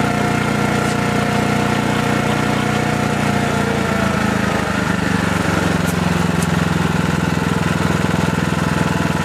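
Briggs & Stratton Q6500 inverter generator's 306cc overhead-valve four-stroke engine running steadily with its QuietPower (QPT) switch on, the engine speed turned down; its pitch eases slightly lower about three to four seconds in.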